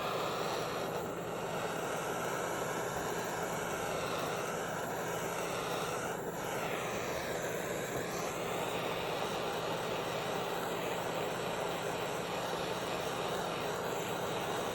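Gas soldering torch running with a steady hissing flame, heating silver jump rings to flow the solder.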